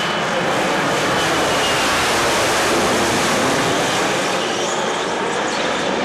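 Harrier jump jet hovering, its Rolls-Royce Pegasus vectored-thrust engine giving a loud, steady jet noise.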